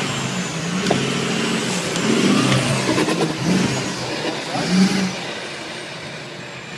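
Off-road 4x4 pickup engine revving up and down in bursts under load as the truck claws over rough, rooted ground.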